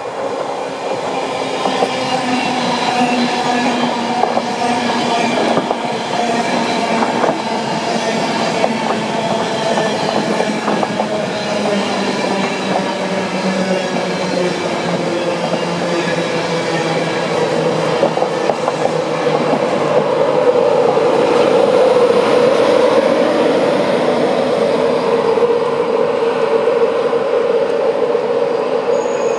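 InterCity 225 train running in on electric traction and slowing for the station: wheels rumbling and clicking on the track, under a whine that falls slowly in pitch as it slows, then settles into a strong steady whine.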